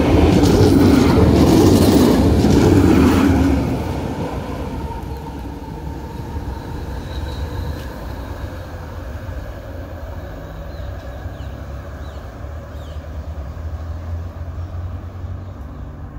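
A Tramlink Stadler Variobahn tram passing close by on its rails. It is loudest for the first three or four seconds, then its running rumble fades as it moves away along the track.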